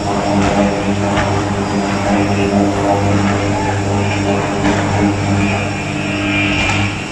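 Electric arc furnace in operation, its graphite electrodes arcing on the steel charge: a loud steady hum with a rasping noise over it and a few sharp crackles.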